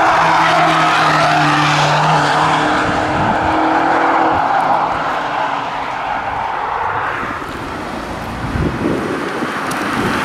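Camouflaged BMW X5 M prototype's twin-turbo V8 running hard past on track. The engine note holds fairly steady for the first few seconds, then fades as the car pulls away.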